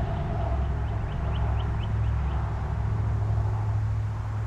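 Steady low rumble of gusty wind on the microphone, with a small bird chirping a quick run of short notes, about four a second, in the first half.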